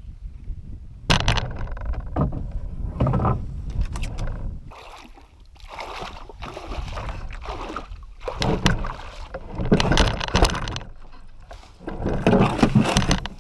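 Canoe coming in against a rocky shoreline: a series of loud, irregular scrapes, knocks and splashes as the hull grinds over the rocks. Near the end comes a loud burst of knocking and rustling as a person clambers out over the bow.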